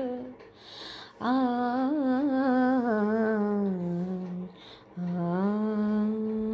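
A woman's solo voice singing a wordless, ornamented melodic line. There is a breath about a second in, then a wavering phrase that sinks lower, another short breath, and a long steady held note near the end.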